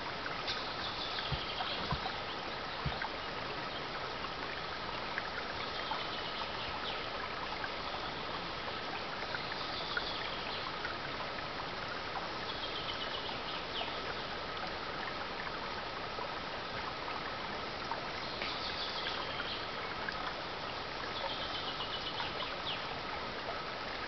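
Shallow mountain stream flowing and trickling over stones in a steady, even burble.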